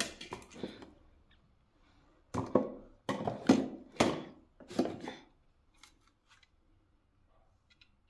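Handling noise from plastic vacuum-cleaner parts and packaging being moved about. A few clicks at the start, then about five short rustling clatters a couple of seconds in.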